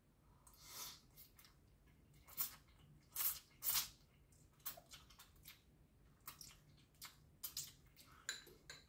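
A person eating instant noodles close to the microphone: a run of short, irregular wet chewing and mouth sounds, the loudest a few seconds in.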